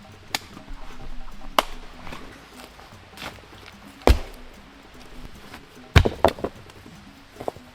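Irregular sharp blows of a hand tool chopping into wood, the loudest about four seconds in, with a quick run of three blows about six seconds in.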